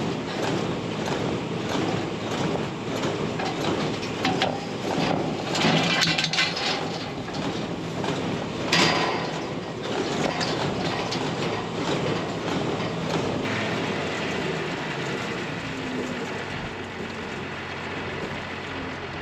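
Tractor pulling a small square baler through straw: the engine runs steadily under the clatter of the baler's mechanism, with a couple of louder knocks about 6 and 9 seconds in.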